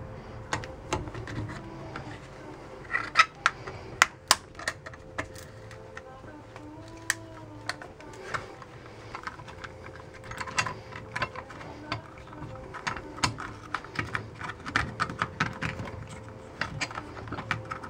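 Irregular clicks and taps of a clamp and a compact camera being handled as the camera's stuck, extended lens barrel is pressed back into its housing. A few sharper clicks come about three to four seconds in.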